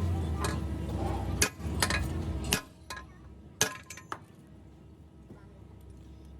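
Metal parts or tools clinking against each other, about seven sharp clinks spread over four seconds. A low steady hum runs underneath and cuts off about two and a half seconds in.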